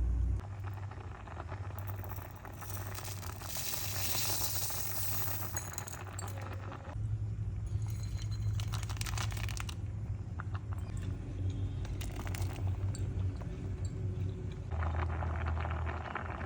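Metal kitchen utensils and dishes clinking and jingling now and then over a steady low hum.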